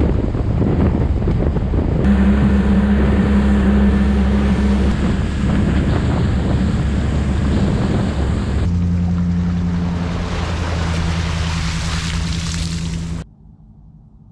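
A boat motor running steadily under heavy wind noise on the microphone. Its hum shifts abruptly about two seconds in and again past the middle, then cuts off suddenly shortly before the end.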